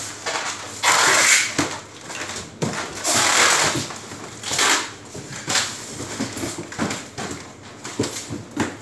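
Styrofoam boxes and plastic food containers being handled and packed: a series of irregular scraping and rustling noises, the loudest about a second in and again around three seconds in.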